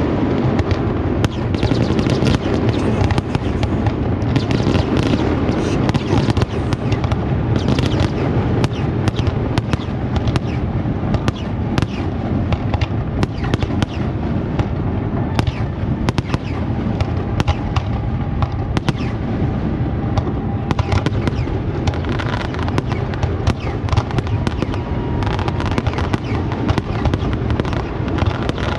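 Aerial fireworks show going off without a break: deep overlapping booms with many sharp cracks and bangs on top.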